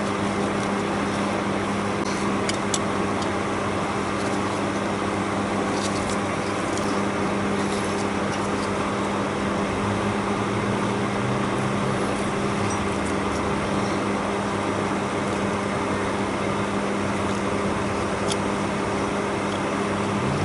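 A steady mechanical hum with an even rushing noise over it, like a running motor or fan, with a few light clicks.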